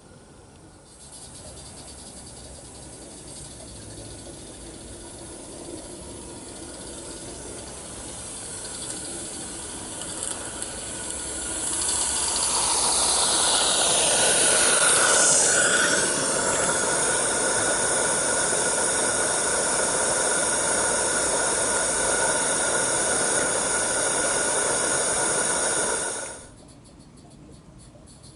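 Roundhouse Lady Anne live steam model locomotive running up close, its steam hissing louder as it nears and loudest about halfway through, then holding steady. The sound cuts off suddenly near the end.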